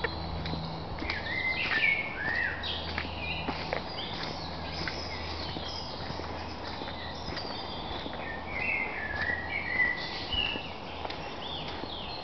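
Woodland birds singing in spring, short warbling phrases from several birds, loudest about two seconds in and again near ten seconds, with the soft crunch of footsteps on a dirt track.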